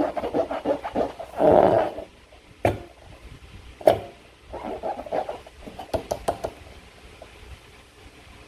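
Slime being squeezed and worked by hand, squelching and crackling in irregular bursts, with two sharp clicks about two and a half and four seconds in.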